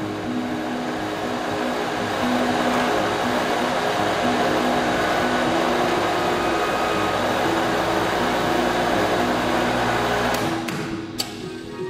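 Electric water pump running with water rushing through the pipe loop: a steady whooshing noise that cuts off about ten seconds in, followed by a sharp click. Soft music plays underneath.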